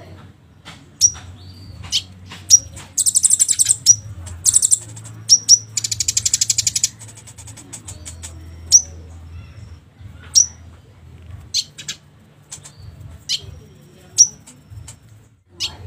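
Konin songbird calls: short, sharp, high chirps repeated roughly once a second, with two fast rattling trills about three and six seconds in, over a steady low hum. This is a lure (pancingan) call meant to set a quiet konin singing and answering.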